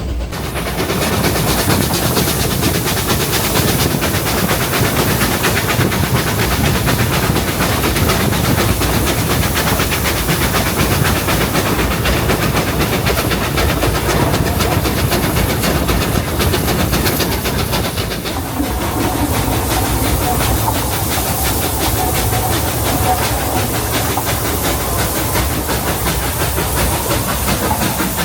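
Narrow-gauge steam locomotive working hard while pulling its train, heard from the carriages, with a steady hiss and rattle. About 18 s in the sound eases a little and a faint steady tone joins in.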